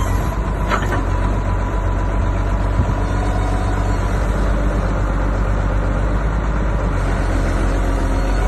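Construction machine's engine running steadily with a low, even hum, with a short sharp scrape or clank about a second in.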